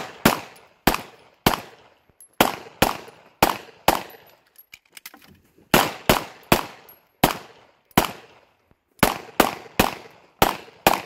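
Semi-automatic pistol fired rapidly, about eighteen sharp shots, mostly in quick pairs, with a longer pause between about four and six seconds in.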